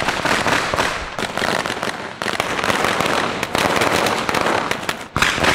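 A string of firecrackers going off: a rapid, unbroken run of sharp bangs, with a brief lull about five seconds in.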